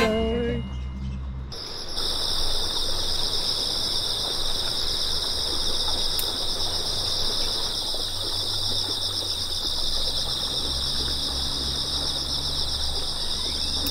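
A chorus of insects chirring steadily in a high, finely pulsing band, coming in about a second and a half in and holding unbroken to the end.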